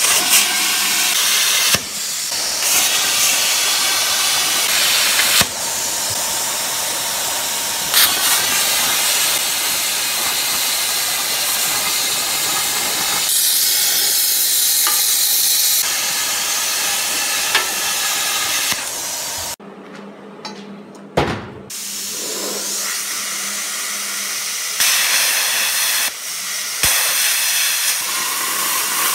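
Plasma cutter cutting through steel wheel rims and plate: a loud, steady hiss of the cutting arc and air, broken off partway through by a pause of about two seconds with a single knock.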